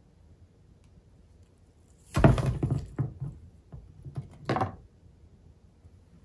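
Hands handling a fresh balsam wreath and its fruit on a wooden table: a loud rustle and knock about two seconds in, a few small clicks, and a second, shorter rustle a couple of seconds later.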